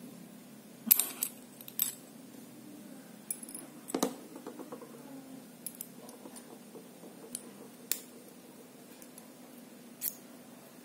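Small steel parts of a hole saw kit (arbor, pilot drill bit, Allen key) clicking and clinking as they are handled and fitted together. A handful of sharp metallic clinks are spread out, the loudest about a second in and another at about four seconds.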